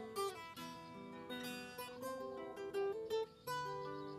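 Background music of plucked and strummed acoustic guitar.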